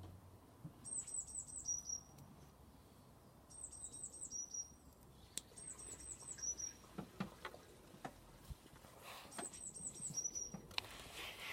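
A songbird singing, repeating the same short phrase four times: a quick run of about five high notes followed by one lower note. Faint clicks and rustles of handling come through between the phrases.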